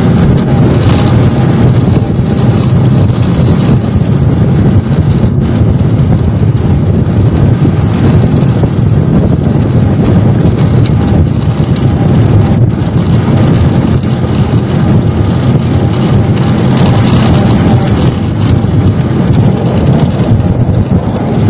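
Jeep driving along a dirt bush track, its engine running steadily with road noise, heard from on board.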